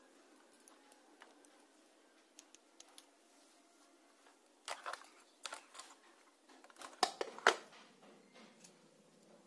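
Small sharp clicks and taps from handling multimeter test probes and their leads against the tabletop and the capacitor terminals, in a few short clusters, the loudest pair about seven seconds in.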